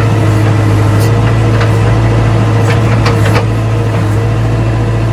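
JCB 3DX Eco backhoe loader's diesel engine running steadily, heard from inside the cab. A few sharp clanks sound around the middle as the backhoe is worked, and the engine eases slightly just after them.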